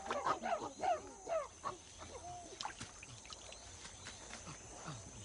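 Chimpanzees calling: a dense run of short cries, rising and falling in pitch, for about the first two seconds, then fainter scattered calls.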